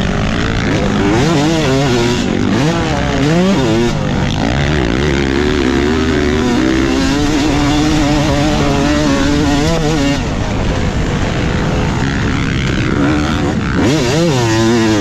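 Yamaha YZ250 single-cylinder two-stroke motocross engine being ridden hard, its pitch climbing and dropping again and again with throttle and gear changes, with one long, slowly rising pull through the middle.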